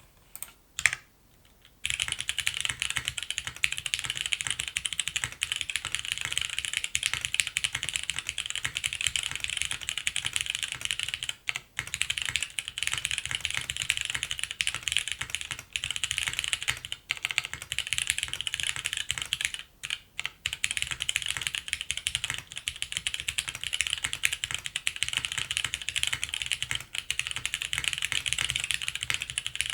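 Steady, fast typing on a custom top-mount mechanical keyboard with Cherry MX Brown tactile switches on a polypropylene plate and GMK Firefly keycaps. A couple of single keystrokes come about a second in, then continuous typing, with two short pauses along the way.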